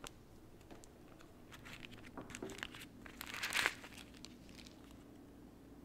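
White packing wrapping crinkling as it is handled: a run of rustles starting about a second and a half in, loudest around three and a half seconds, then fading out.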